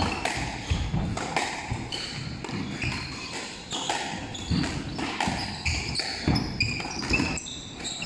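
Squash rally: the rubber ball is struck by rackets and smacks off the court walls and floor in a quick, irregular series of sharp hits, with short high squeaks from court shoes on the wooden floor.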